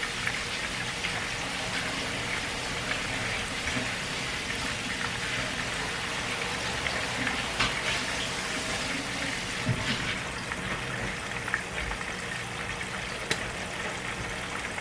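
Flour-coated chicken wings deep-frying in hot canola oil, a steady sizzle with a few sharper pops about halfway through and near the end.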